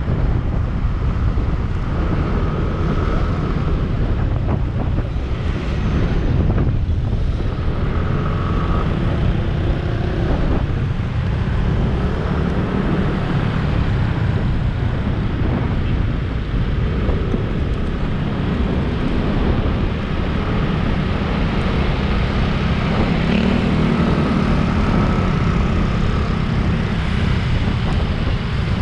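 Steady wind rushing over the microphone while riding along a city road, mixed with the road and engine noise of passing traffic.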